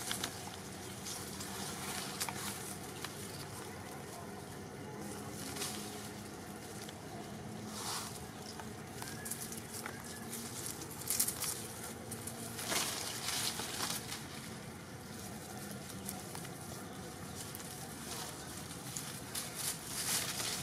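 Irregular rustling and crackling of leaves and twigs as macaques move through the branches and over dry leaf litter, over a steady outdoor hiss, with the crackles bunched in a few short spells.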